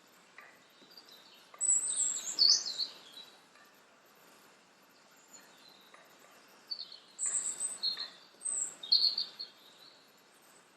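A bird chirping in two short bouts of high, quickly bending calls, one about two seconds in and one about seven seconds in.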